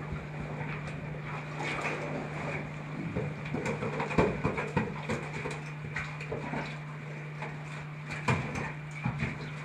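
Scrapes and knocks of a caver's helmet, gear and boots against rock as he squeezes through a narrow rift, loudest about four seconds in and again near the end, over a steady low hum.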